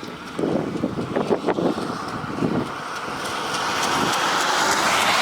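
Car and wind noise: uneven low rumbling, then a rushing hiss that swells over the last two seconds.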